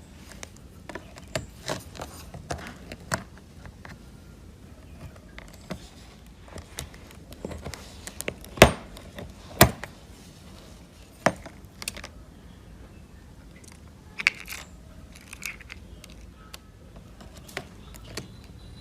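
Scattered clicks and taps of small tools and phone parts being handled during a phone repair, with two sharper knocks near the middle the loudest.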